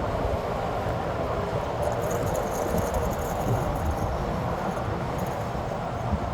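Strong gusty wind buffeting the microphone: a steady low rumble that comes from the storm wind picking up ahead of a hurricane.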